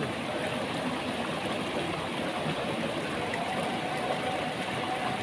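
Steady rush of a flowing stream, with a faint steady hum joining about three and a half seconds in.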